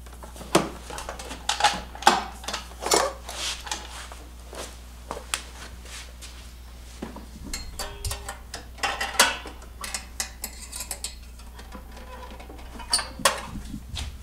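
Scattered metallic clinks and rattles, some sharp and some light, as the spring-held exhaust on a Ski-Doo snowmobile is worked loose with a spring puller.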